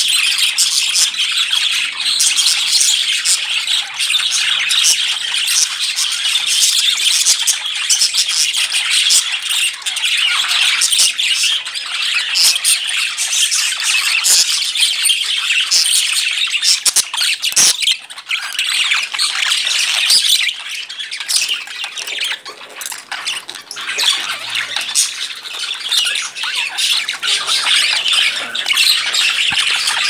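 A group of budgerigars chattering and squawking continuously, many short calls overlapping.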